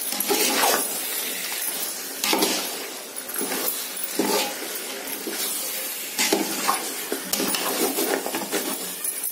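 A metal ladle scraping and clinking against a metal biryani pot as it stirs raw chicken pieces through a thick masala, in irregular strokes every second or two.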